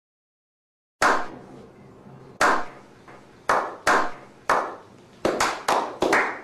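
A slow clap: after a second of silence, single hand claps about a second apart, each with a short echoing tail, that come faster and closer together toward the end as more hands join in.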